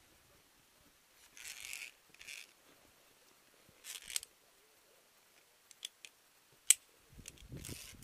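Via ferrata lanyard carabiners and gear knocking on the steel safety cable and iron rungs while climbing: a few sharp metallic clicks, the loudest about two-thirds of the way in, with short hissing handling sounds between them.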